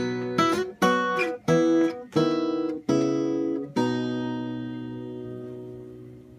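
Ed Reynolds custom-built acoustic guitar, capoed, strumming a short run of closing chords, then a final chord about four seconds in left to ring out and fade: the end of the song.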